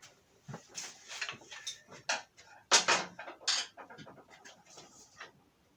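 Irregular knocks, clunks and scrapes of parts being handled in a workshop, the loudest clunk about three seconds in.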